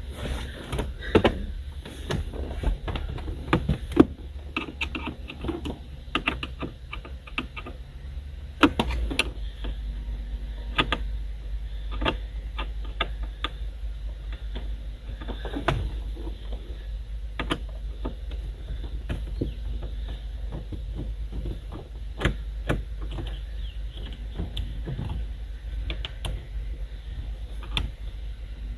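Irregular clicks and knocks of hand tools on plastic interior car trim as a stubborn trim screw is worked loose, over a low steady hum.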